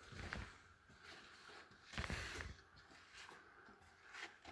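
Near-silent pause with a few faint, short noises of people moving about; the loudest comes about two seconds in, with weaker ones near the start and near the end.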